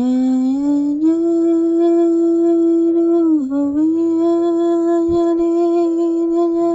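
A woman's voice humming one long held note that slides up at the start and dips briefly about three and a half seconds in.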